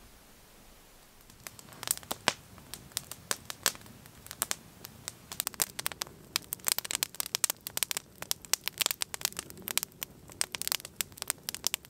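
Wood campfire crackling, with irregular sharp pops that start about a second in.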